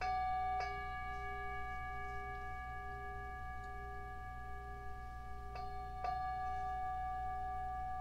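Singing bowl struck four times, in two quick pairs at the start and about five and a half seconds in. It rings on with several steady high tones over a lower tone that wavers in level.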